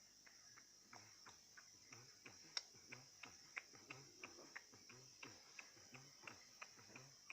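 Caged bird hopping back and forth between its perches: faint, regular ticks of its landings, about three a second, with one sharper click about two and a half seconds in.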